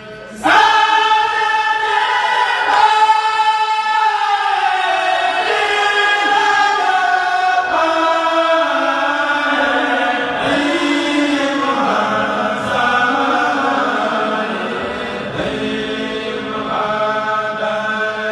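A kourel, a group of men chanting a khassida (Mouride Sufi religious poem) in unison. They hold long notes that slide between pitches, and come in together about half a second in after a brief pause for breath.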